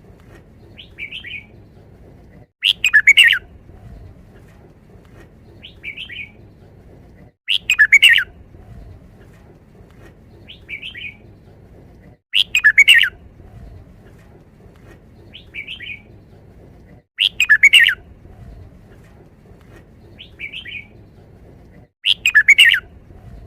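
Red-whiskered bulbul singing its short five-syllable 'wild song' phrase, loud and under a second long, repeated five times about every five seconds. Fainter short chirps fall between the phrases.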